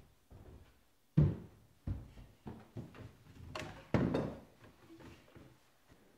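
A child's footsteps thumping on wooden stairs and a hardwood floor, then a wooden chair being moved as he sits at the table. The loudest thump comes about a second in, followed by a few lighter knocks and a short scraping stretch around four seconds in.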